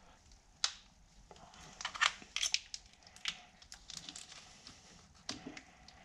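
Plastic wiring-harness clips and wire loom being handled and pressed back into place on an engine, giving irregular sharp clicks and plastic rustling, busiest about two seconds in.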